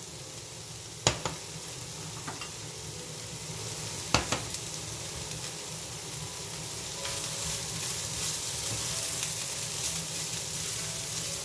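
Rice and vegetables sizzling steadily in a frying pan over high heat, with two sharp knocks about one second and four seconds in. The sizzle grows louder about seven seconds in.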